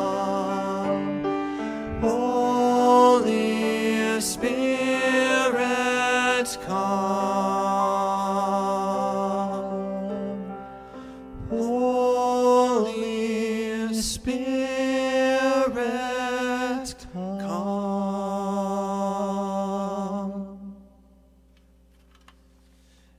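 Men singing a slow worship refrain with grand piano accompaniment, the voices holding long wavering notes. The music fades out about twenty seconds in, leaving quiet.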